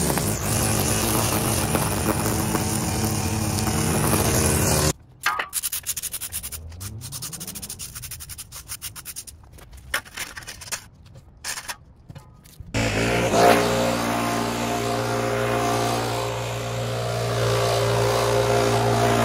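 Small gasoline engine of yard equipment running steadily. In the middle the sound turns choppy and broken up, with one rise in pitch, before the engine settles back into steady running.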